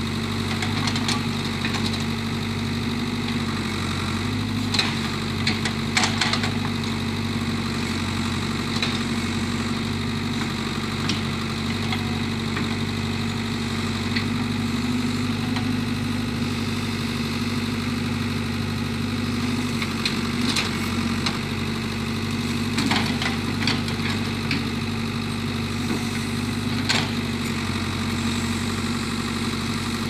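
Ford backhoe's diesel engine running at a steady pitch while its bucket digs out a stump, with scattered sharp cracks and knocks from the digging, in clusters about five seconds in and again after twenty seconds.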